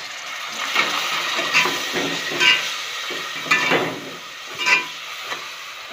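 Onion-and-spice masala frying in oil with a little water in a metal pot, sizzling steadily, while a spatula scrapes and stirs it in strokes about once a second.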